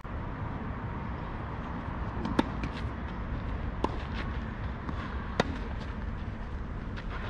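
Tennis ball struck back and forth by rackets on a clay court: three sharp hits about a second and a half apart, with a few fainter ticks between them, over a steady low background rumble.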